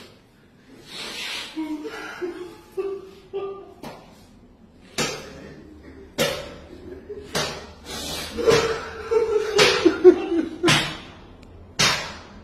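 People's voices, growing louder near the end, with a series of sharp slaps about once a second from halfway through.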